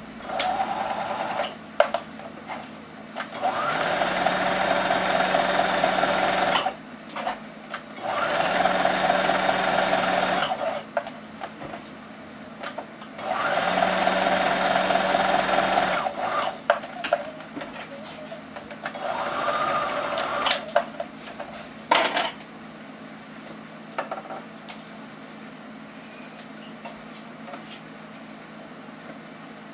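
Small electric sewing machine stitching in four runs of two to three seconds each and a shorter fifth, stopping between runs to back-stitch and turn the fabric at the corners, with handling clicks in the pauses. Near the end there are only light clicks as the corners are snipped with scissors.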